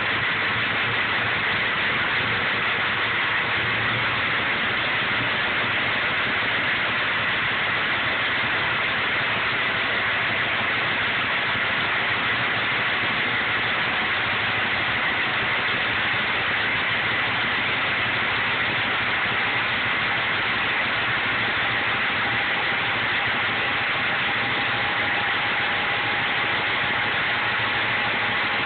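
A 6.0-litre engine idling steadily, with an even hiss-like noise throughout.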